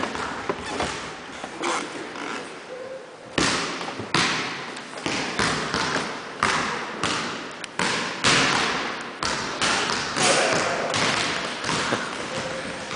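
A basketball bouncing on a hardwood gym floor: a string of sharp, irregular thuds, about one or two a second from around three seconds in, each echoing in the large gym.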